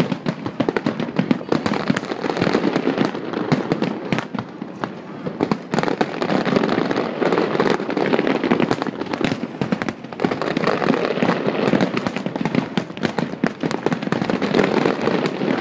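Aerial fireworks shells bursting in a dense, rapid barrage: booms and sharp cracks follow one another with no gaps, over a continuous crackle.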